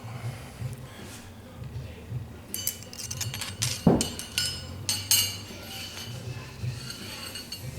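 Metal clinking and tapping of a cleaning rod being run through a Remington 870 12-gauge shotgun barrel, a quick cluster of clicks in the middle with one heavier knock about four seconds in.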